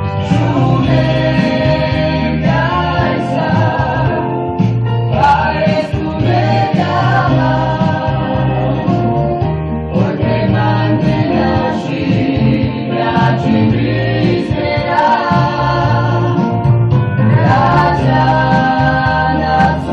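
Music with singing voices over a steady bass, playing without a break.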